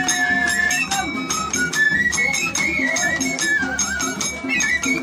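Traditional folk dance music: a flute-like melody that steps up and down over a fast, steady rattling beat.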